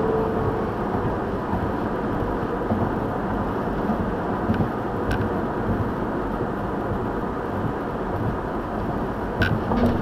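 Car driving across the Golden Gate Bridge, heard from inside the cabin: steady road and wind noise. A steady humming tone from the bridge's new wind railings singing in the wind stops within the first second.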